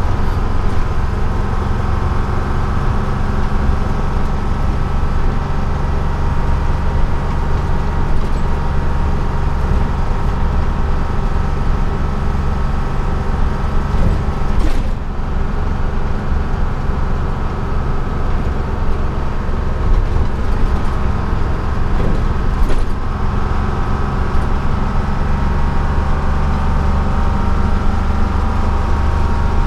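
A 1948 GMC Silversides bus under way, heard from the cab: its Detroit Diesel 6-71 two-stroke diesel running steadily under road noise. The engine note dips briefly about halfway through, and there is a light click a little later.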